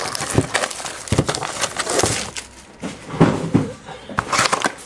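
Trading-card box packaging being torn open and handled, a steady run of crinkling and crackling.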